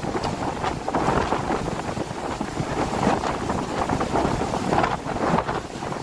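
Wind blowing across the microphone: an unpitched, gusty noise that keeps swelling and dipping.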